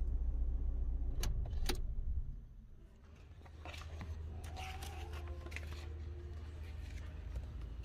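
Low steady rumble inside a Ford EcoSport's cabin, with two sharp clicks, that stops abruptly after about two seconds. Then the paper pages of an owner's manual rustle as they are turned.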